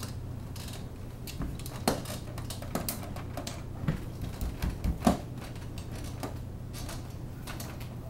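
Scattered clicks and knocks of a folding army cot's metal frame being assembled, the end bar knocking against the frame as it is levered into the canvas; the sharpest knocks come about two, four and five seconds in. A steady low hum runs underneath.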